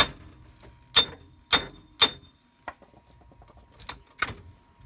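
Hammer blows on a rust-seized steel wheel hub on a Jeep Cherokee Dana 30 front knuckle: four sharp metallic strikes with a brief ring in the first two seconds, hitting to break the rust loose. Lighter metal knocks and one sharp clank follow as the hub is worked free by hand.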